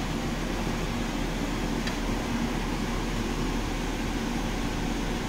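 Steady whirring hum and hiss of kitchen machinery noise, even throughout, with a faint light clink about two seconds in.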